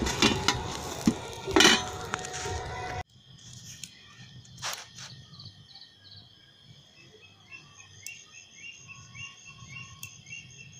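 A metal spatula scrapes and clatters in a steel pan of frying eggplant slices. The sound cuts off suddenly about three seconds in, leaving faint, high, steady insect chirping.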